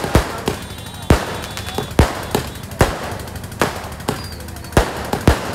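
Aerial fireworks going off in quick succession: a string of sharp bangs, irregularly about two a second, with crackling in between.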